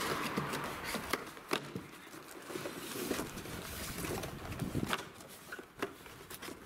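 Handling noise from a long cardboard box being opened: scattered clicks, knocks and rustles of cardboard and packaging.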